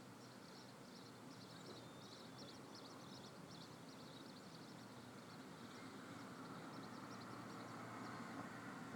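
Near silence: faint background hiss with soft, rapid high-pitched chirps through the first half, and a faint rustle building slightly near the end.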